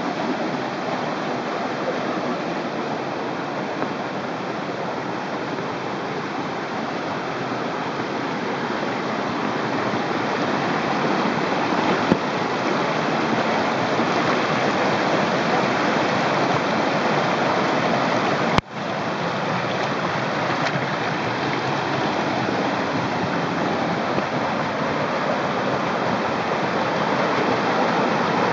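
Rocky mountain stream rushing over small cascades and falls into pools, a steady loud rush of water. About two-thirds of the way through it drops out for an instant.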